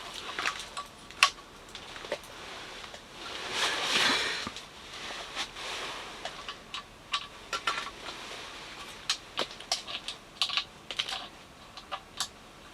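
Small, irregular metal clicks and clinks as a sharpened hand ice auger blade and its fastenings are handled and fitted back onto the auger's cutting head, with a longer scraping rustle about four seconds in.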